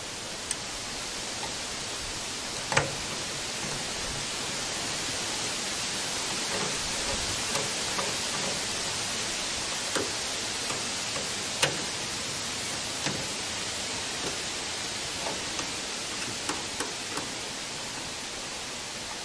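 Scattered small metallic clicks and taps as screws are tightened with a screwdriver on a stainless steel antenna mount plate, over a steady hiss. The sharpest clicks come about three seconds in and about halfway through, with a few quicker ticks near the end.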